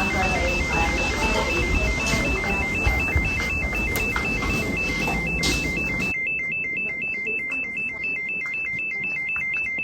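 Electronic alarm beeping rapidly in two high tones sounded together, steady and unbroken; a noisy background behind it cuts off abruptly about six seconds in.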